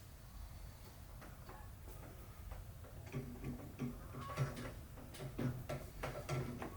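Light clicks and clinks of hand tools being worked on metal: a few scattered ticks, then a denser run of quick clicks in the second half.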